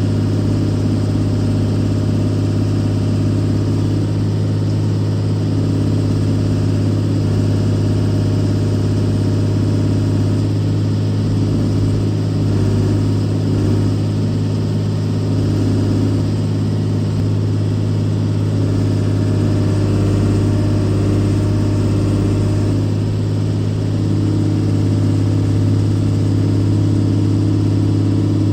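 Case 125B hydraulic excavator's diesel engine running steadily at a constant speed, a continuous low hum.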